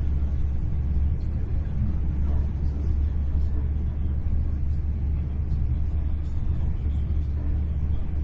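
Steady low rumble of a Great Western Railway Class 800 Intercity Express Train in motion, heard from inside the passenger carriage, with faint light ticks and rattles over it.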